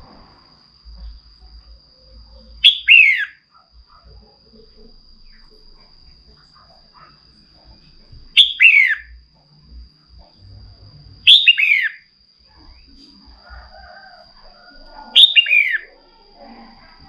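Red-whiskered bulbul calling: four sharp, quick phrases a few seconds apart, each two or three notes that fall steeply in pitch.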